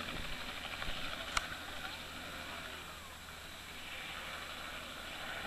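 Distant helicopter in flight, a faint, steady rotor and engine noise. A single sharp click about a second and a half in.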